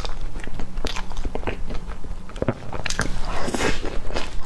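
Close-miked chewing of a mouthful of soft cream cake, with many short, irregular mouth clicks and smacks.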